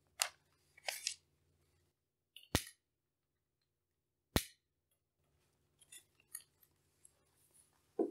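Light paper rustling, then two sharp clicks about two seconds apart: a long-reach candle lighter being clicked to light a candle, followed by faint rustling and ticks.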